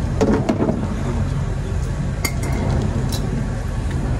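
Metal brake parts clinking as they are handled during a brake pad change: a quick cluster of clinks at the start, then single clinks about two and three seconds in. A steady low hum runs underneath.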